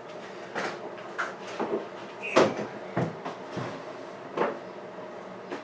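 A series of irregular knocks and clunks, about seven, the loudest about two and a half seconds in, as the old laundry tub and its fittings are handled and moved.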